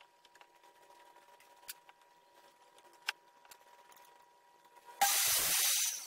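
A short burst of hissing spray or air jet, lasting just under a second near the end, after a few faint clicks of wooden pieces being handled on the workbench.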